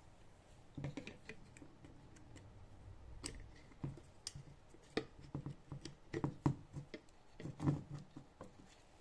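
Irregular light clicks and small knocks of hand tools and parts being handled during the repair, coming more often and louder in the second half.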